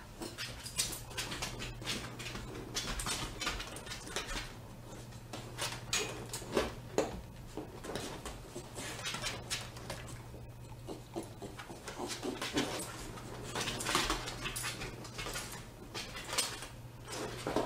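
A dog left home alone making short, irregular vocal noises again and again, with a steady low hum behind.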